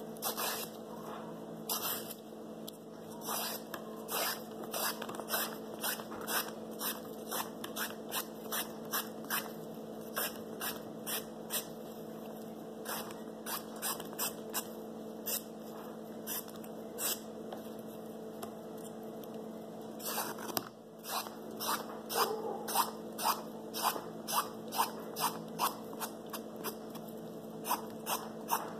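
Vegetable peeler scraping strips of skin off a cucumber in short repeated strokes, about one to two a second, coming faster in the last third, over a steady background hum.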